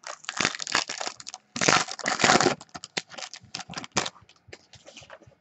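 Foil trading-card pack wrapper being torn open and crinkled by hand, loudest in the first two and a half seconds. It is followed by lighter, scattered clicks and rustles.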